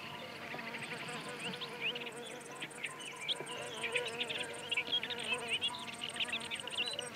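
Meadow insects chirping and buzzing: repeated trains of quick high-pitched pulses, scattered short chirps, and a steady buzz underneath.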